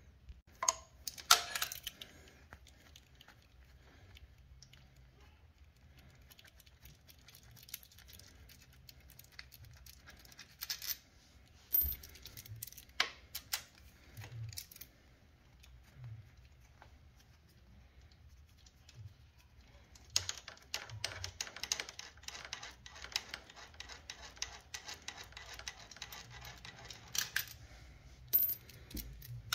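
Hand ratchet with an 8 mm socket clicking as it turns the case saver bolts, with scattered metallic clinks of tools and bolts. A long run of fast, even ratcheting comes about two-thirds of the way through.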